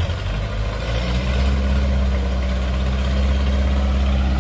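Long-tail boat engine idling steadily, its hum picking up a little about a second in and then holding even.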